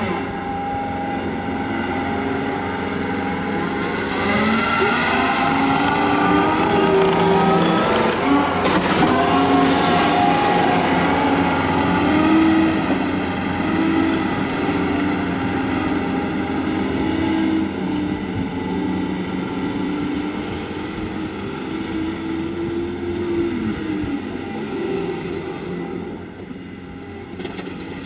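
John Deere 335P skid steer's diesel engine working under load, its pitch rising and falling repeatedly as it revs up and eases off. It is loudest through the middle and drops back a little near the end.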